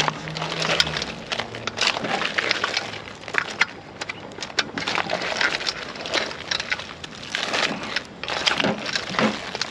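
Cooked crawfish and shrimp being mixed with seasoning in a pot: hard shells clattering and cracking against each other and the pot in an irregular run of sharp clicks.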